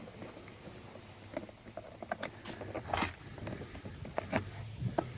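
Scattered light clicks and taps of parts being handled, with one louder scraping rustle about three seconds in, over a steady low hum.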